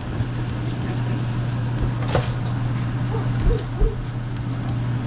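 Pot and utensil clatter, a few short knocks about two seconds in and twice more a little after the middle, over a steady low hum and background noise while the duck is being put into the curry pot.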